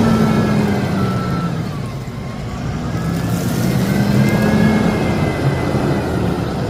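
Heavy earthmoving machine's engine running under load, its pitch dipping about two seconds in and climbing again, with two reversing-alarm beeps at the start.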